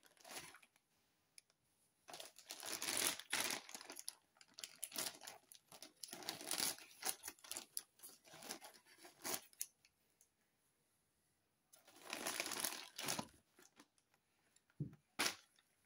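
Clear plastic bag crinkling in several bursts as it is handled and cut open with scissors. Two short clicks come near the end.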